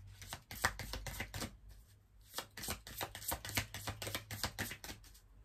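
A deck of oracle cards being shuffled by hand: quick, irregular card-on-card slaps and clicks, with a short lull about two seconds in.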